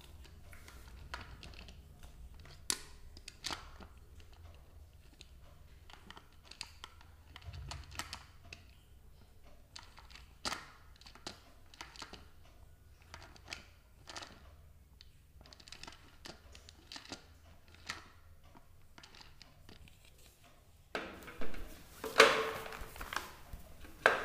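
Light, irregular clicks and taps of hands lifting cucumber slices out of a clear plastic food-processor bowl, plastic knocking against plastic, with a few louder knocks near the end as the bowl and lid are handled. The motor is not running.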